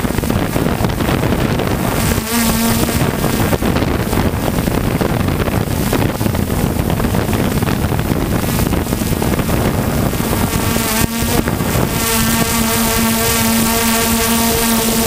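3DR Solo quadcopter's motors and propellers buzzing steadily, mixed with wind rush on the microphone; a steady whining tone stands out briefly about two seconds in and again over the last few seconds.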